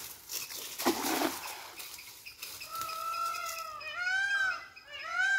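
Cast net thrown out and landing on the water with a splash about a second in. From about three seconds a bird calls again and again in rising-and-falling notes.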